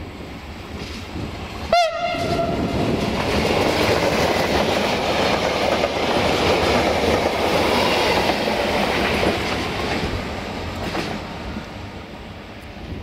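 A short passenger train sounds one brief horn blast about two seconds in. It then passes close by at speed with loud wheel-on-rail rumble and clatter, which fades as it draws away near the end.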